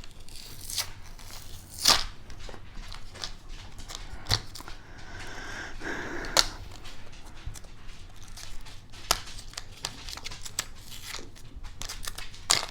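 New batteries' packaging being torn and peeled open by hand: crinkling with a run of sharp clicks and snaps, the loudest about two seconds in.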